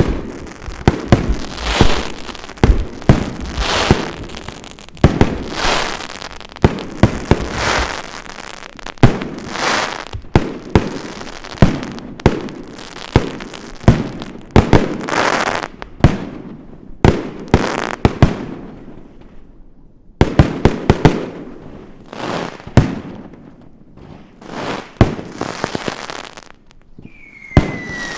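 Fireworks going off: a rapid run of loud aerial shell bangs, about one or two a second, each trailing off in a smear of echo, with a couple of short lulls. Near the end a high whistle falls steadily in pitch.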